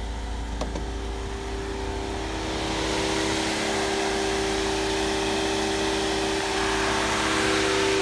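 Mercedes-Benz 190E 2.3's four-cylinder engine idling steadily, with a rushing hiss that grows louder about two and a half seconds in.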